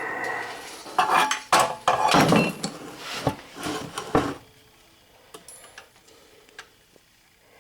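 Metal hand tools and ratchet parts clinking and clattering as they are handled. There is a busy run of irregular knocks for about four seconds, then only a few faint ticks.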